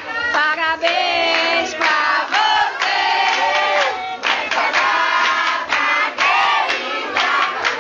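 A crowd of adults and children singing together loudly, with shouts mixed in.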